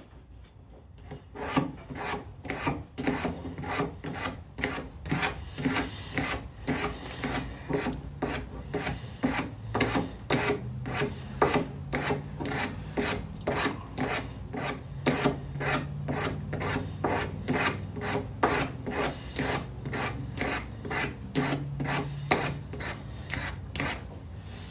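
Steady back-and-forth hand scraping on an old rusty bar clamp, about two strokes a second, as rust and grime are worked off the metal.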